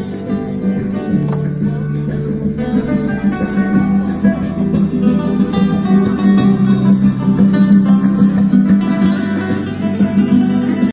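Street musician's acoustic guitar, fingerpicked, with a continuous run of plucked melody notes over a steady bass, played through a small amplifier with a microphone on the guitar.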